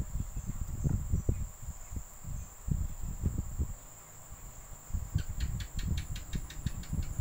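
Hands working yarn and a crochet hook close to the microphone: an uneven run of soft low bumps and rustles, over a thin steady high-pitched whine. About five seconds in comes a quick series of about a dozen short chirps, roughly six a second, lasting about two seconds.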